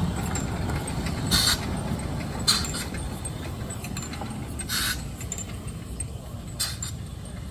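Narrow gauge railway locomotive running slowly: a steady low rumble with a few short, sharp hisses a second or two apart.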